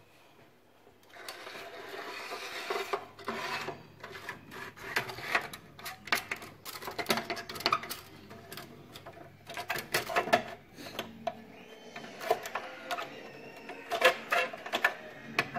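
Rubbing and scraping, then many short clicks and knocks, as a side profile rail is worked onto a Neff Slide and Hide oven door.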